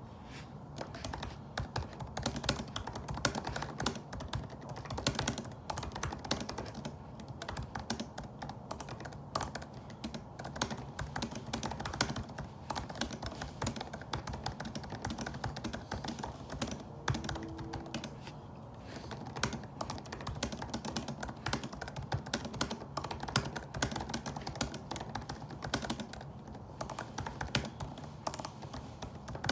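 Fast, continuous touch-typing on a laptop keyboard: a dense patter of key clicks, broken by a few short pauses.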